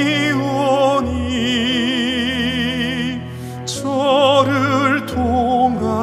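Slow sacred song: a woman's singing voice with heavy vibrato, holding long notes over a sustained accompaniment.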